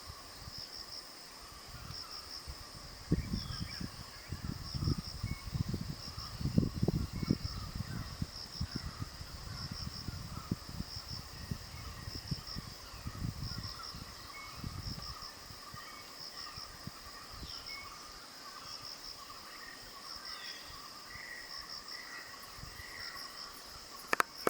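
Tropical forest ambience: insects trill steadily, one of them in regular repeated groups of quick high chirps, with a lower steady insect drone and scattered short bird calls. From about three to fifteen seconds in, loud irregular low rumbling buffets over it; a few sharp clicks come at the very end.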